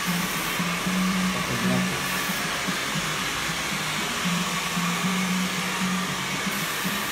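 A hair dryer blowing steadily, with music playing underneath.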